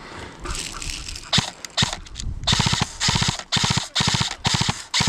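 Airsoft gun firing: a couple of single shots, then a string of short full-auto bursts in quick succession, each a rapid train of evenly spaced shots with brief pauses between.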